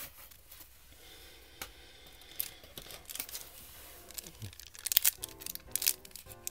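Foil wrapper of a 1991 Upper Deck basketball card pack crackling and starting to tear as it is worked open by hand, in sharp crackles that begin about five seconds in. Before that there is only soft handling of the cards, with faint music underneath.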